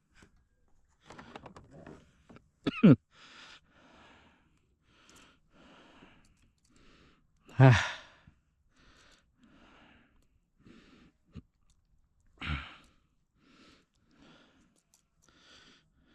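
A man's laboured breathing during an asthma attack: short, breathy bursts about once a second. Three loud voiced outbursts break it, about three, eight and twelve seconds in, each falling in pitch; the one near eight seconds is the loudest.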